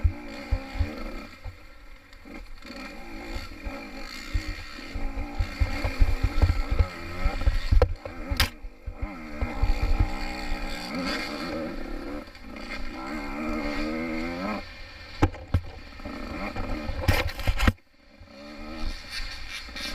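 Small-bore two-stroke dirt bike ridden hard, the engine revving up and falling back again and again, with thuds and knocks from the rough trail. Near the end the engine sound drops away sharply for a moment, then picks up again.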